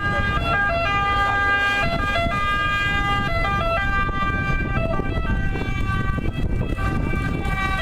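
Ambulance two-tone siren sounding, its pitch stepping back and forth between a higher and a lower note, over a steady low rumble.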